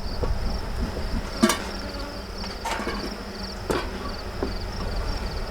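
Honeybees buzzing at an opened hive, a faint steady low hum, with a steady pulsing high-pitched insect trill over it. A few sharp clicks and knocks from the wooden frames being handled, about a second and a half in, near the middle, and again a second later, and wind rumbling on the microphone.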